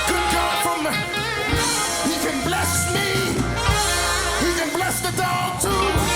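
Band music with a steady bass line, drums and a wavering melody line on top.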